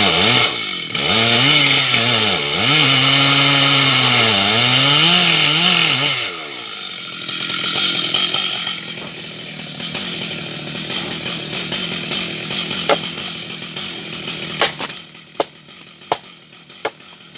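Stihl MS 880 large two-stroke chainsaw cutting at high revs, its pitch dipping and recovering under load, then stopping about six seconds in. A quieter rustling stretch follows, with several sharp cracks near the end.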